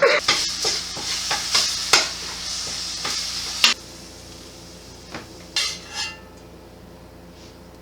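Ground turkey sizzling in a frying pan while a utensil stirs and scrapes it, with repeated clicks against the pan. The sizzle cuts off suddenly a little over halfway through, leaving only a few faint clinks.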